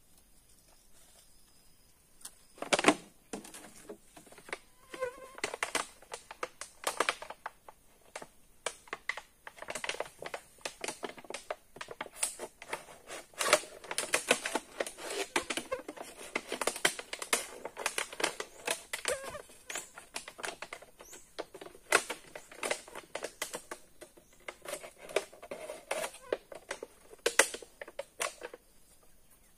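Plastic bag crinkling and rustling as it is handled and opened, a dense run of irregular crackles starting a couple of seconds in. A faint steady high insect drone sits underneath.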